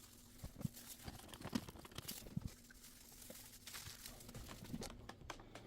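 Faint handling noise: scattered light rustles and small taps, with no steady sound under them.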